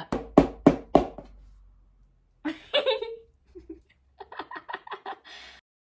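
Women laughing: a string of loud laughs in the first second, then lighter giggling and chuckling.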